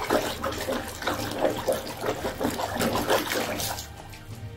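Muddy water sloshing and splashing in a plastic tub as a hand stirs through it; about four seconds in the splashing quietens and water dribbles off a toy lifted out of the tub.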